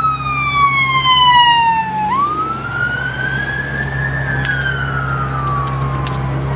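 Emergency vehicle siren in a slow wail: the pitch slides down, sweeps back up about two seconds in, then falls again. A steady low engine hum runs underneath.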